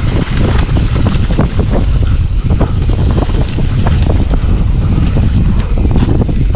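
Wind buffeting an action camera's microphone as a mountain bike rides fast downhill, with a constant low rumble and frequent clatters and knocks from the bike over rough trail.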